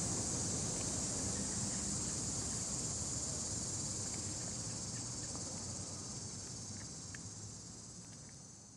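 Domestic cat purring close up as it is petted, a fast, even low rumble, under a steady high hiss of insects in the grass; the whole sound fades out toward the end.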